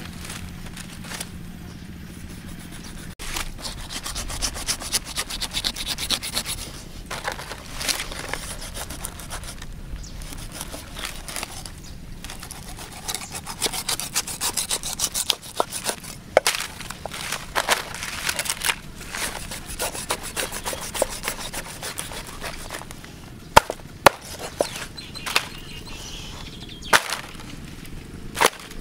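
Knife scraping and cutting a stingray on a wooden chopping board, in irregular rasping strokes. A few sharp knocks of the blade on the board come near the end.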